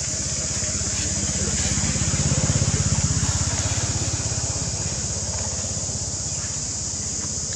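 A passing motor vehicle's engine: a low, evenly pulsing hum that swells to its loudest about two and a half seconds in, then fades. A steady high hiss runs underneath.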